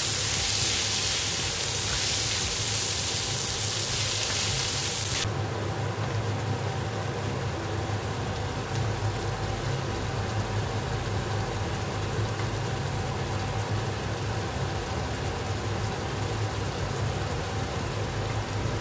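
Meat and onions sizzling in a hot wok: a loud, hissing sizzle that cuts off abruptly about five seconds in, leaving a quieter steady sizzle over a low hum.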